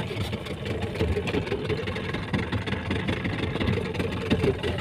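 Small fishing boat's engine idling steadily, with a few light knocks.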